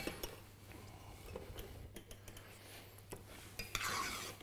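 Faint kitchen utensil sounds: a few light clinks, then a short scraping, rubbing noise near the end.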